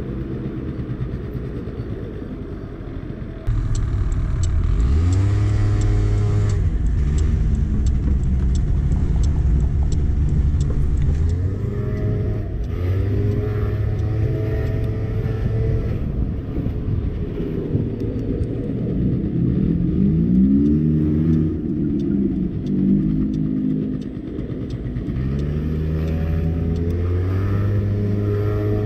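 50cc scooter engine running on the move, its pitch rising and falling several times as it accelerates and eases off. It gets louder about three and a half seconds in.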